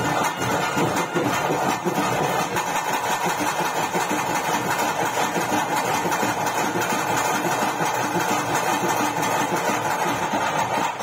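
Loud, dense live ritual music for a bhuta kola: rapid, continuous drumming under a steady held high tone.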